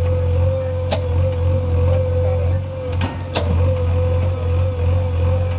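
JCB 3DX backhoe loader's diesel engine running steadily under work, with a constant whine above the engine note. Three sharp knocks come through, about a second in and twice close together around three seconds in.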